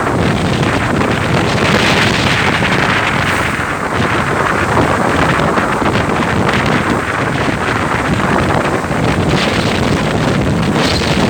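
Strong wind blowing across the microphone, a loud, steady rush that swells briefly about two seconds in.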